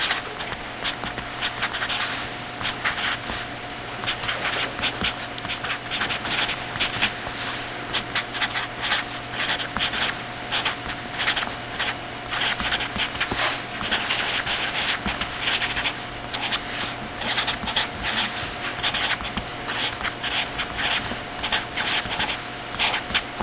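Handwriting on a writing surface: quick, irregular scratching strokes of a pen, marker or chalk, over a steady electrical hum.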